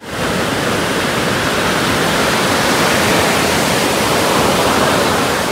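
Ocean surf breaking and washing up on a sandy beach: a loud, steady rush of water that starts abruptly.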